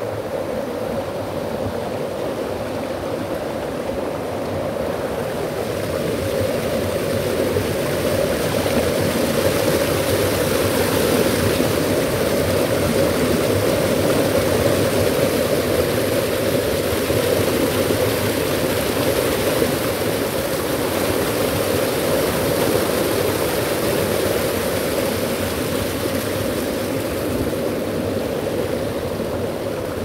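Mountain stream rushing over rocks and small rapids, a steady rush of water that swells louder about six seconds in and eases off toward the end.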